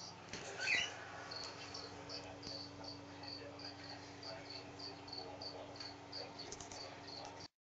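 A cricket chirping in a steady rhythm, about three short high chirps a second, over a steady low hum. The sound cuts off abruptly near the end.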